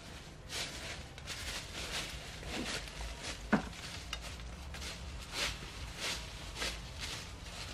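Dry leaf litter crunching and rustling under footsteps and hands as cardamom is harvested at the base of the plants, in short irregular crackles, with one sharper snap about three and a half seconds in.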